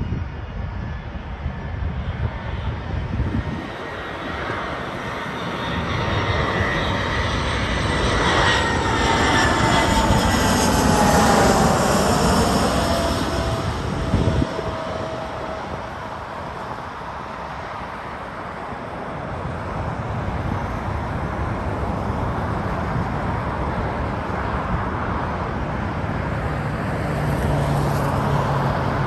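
Delta Airbus A319-114 with CFM56 jet engines passing low overhead on landing approach. Its engine whine and rumble swell to a peak about ten seconds in, the whine sliding down in pitch as the plane goes by, then ease off.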